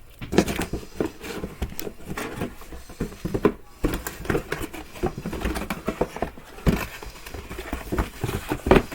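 Close, irregular rustling, tapping and knocking of gear being handled and moved about, with many short clicks and a few sharper knocks.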